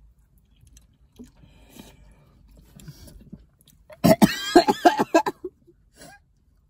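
Faint eating sounds, then about four seconds in a loud burst of coughing and gasping lasting about a second and a half, a reaction to the heat of very spicy noodles.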